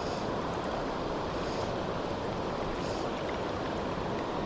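Steady rushing of a river current flowing around the wading angler, with three faint brief swishes about a second and a half apart.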